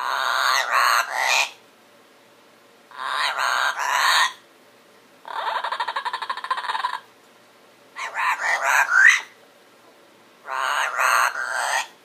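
A double yellow-headed Amazon parrot talking in its sleep: five short, mumbled chattering bursts about every two and a half seconds. The middle burst is a fast rattle.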